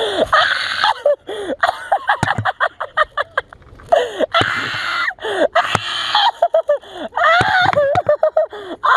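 Heavy, noisy breathing close to the microphone, mixed with shouting voices that rise and fall, loudest near the end.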